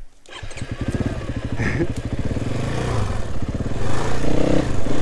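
Husqvarna 501's single-cylinder four-stroke engine catching just after the start and running, its rapid firing pulses growing louder over the first second and then holding steady.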